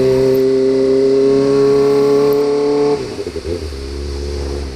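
Kawasaki ZX25R's inline-four engine, on an Austin Racing GP RR exhaust, pulling at high revs with its note climbing steadily. About three seconds in the throttle closes and the engine falls abruptly to a lower, choppy note as the bike slows.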